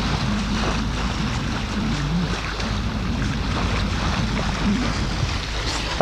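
Water rushing and splashing along the bow of a Beneteau Oceanis 45 sailing yacht under way, with wind buffeting the microphone.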